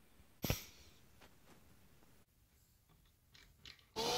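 Mostly quiet, with a few faint clicks and taps and one sharp knock about half a second in. Just before the end a cordless drill suddenly starts, spinning the crankshaft of a clear plastic four-cylinder model engine with a steady whine.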